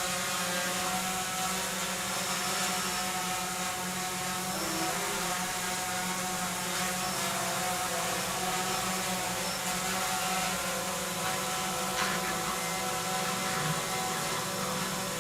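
Electric sump pump running steadily with a motor hum, pumping a test load of water out of a container. A single short click about twelve seconds in.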